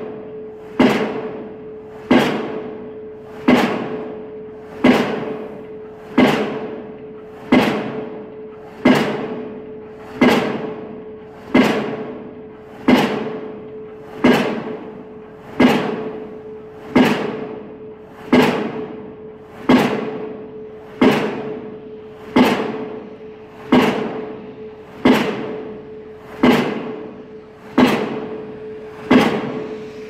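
Diesel impact pile hammer driving a steel pile: sharp, ringing blows at an even pace of about one every 1.3 seconds, over a steady ringing tone.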